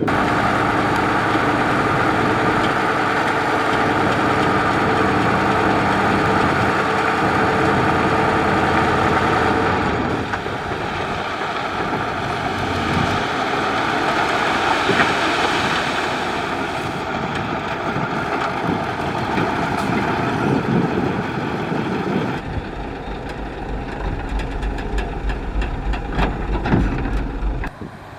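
Heavy construction machinery with a diesel engine running steadily. A deeper low rumble joins for about five seconds near the end.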